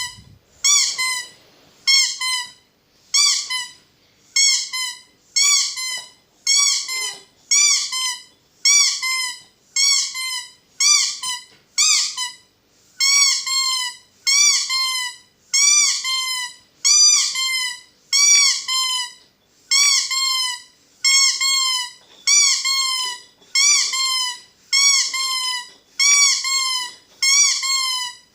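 Squeaky toy squeezed over and over, giving a steady run of high squeaks at about one a second. Each squeak rises and then falls in pitch.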